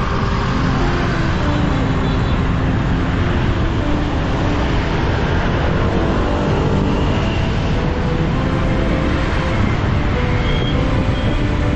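Motorbike riding in dense scooter traffic, heard from a helmet-mounted camera: steady engine and road noise, heaviest in the low end, with the engines of surrounding motorbikes mixed in.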